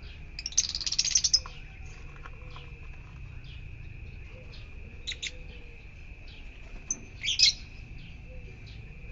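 Yellow-collared lovebirds calling with loud, shrill chirps: a rapid chattering burst about half a second in, a pair of sharp chirps around five seconds, and another burst a little past seven seconds, with fainter chirps between.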